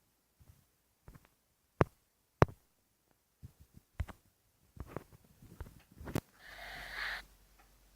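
Scattered sharp clicks and taps from working the editing device, two louder ones about two seconds in, with a brief hissy rustle a little after six seconds.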